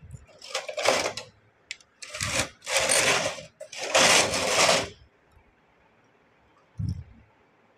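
Carriage of a Brother knitting machine pushed across the needle bed several times in the first five seconds, each pass a rasping whir, knitting rows of a two-colour design. A single low thump follows near the end.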